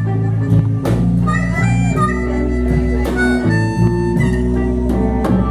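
Blues band playing a slow blues instrumental break between sung lines: a harmonica plays long held notes over guitar and a steady bass.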